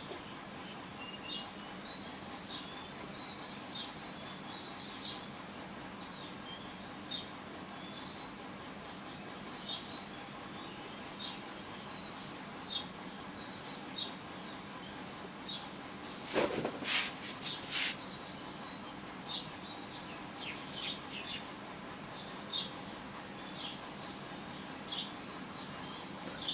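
Background birds chirping with short, rapid calls, over a steady high pulsing trill typical of an insect. About sixteen seconds in comes a brief cluster of louder scratchy strokes.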